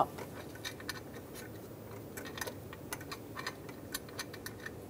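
Light, irregular clicks and small scrapes of a steel bolt being started by hand into the water pump housing of a 3.6 L V6 engine.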